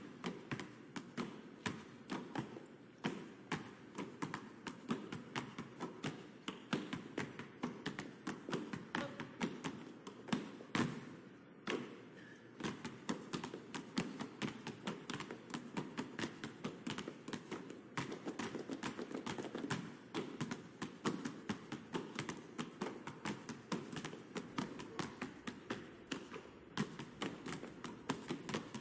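Several basketballs bounced on pavement as a percussion piece, their bounces locking into a fast, dense rhythm. The rhythm breaks off briefly about twelve seconds in, then picks up again.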